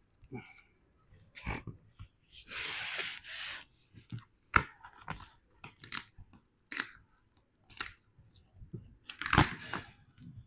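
Cardboard shipping boxes being rummaged through and shifted: rustling and crinkling of flaps and packing, with a few sharp knocks as the boxes are moved.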